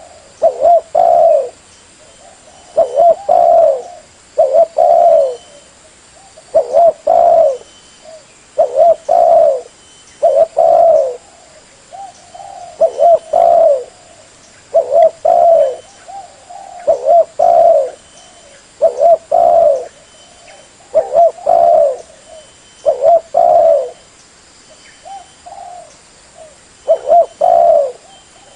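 Spotted dove (tekukur) cooing over and over in short phrases of two or three notes, one phrase about every two seconds: a recorded lure call for drawing in wild doves.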